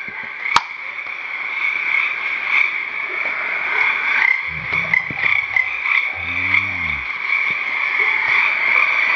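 Night chorus of frogs and insects: a steady high-pitched trilling, with two low croaking frog calls near the middle. A sharp click sounds just after the start.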